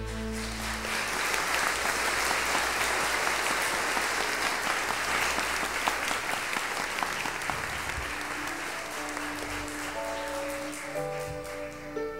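Audience applauding with steady, dense clapping as the song's last held chord dies away in the first second. Soft sustained music notes come back in about ten seconds in, under the applause.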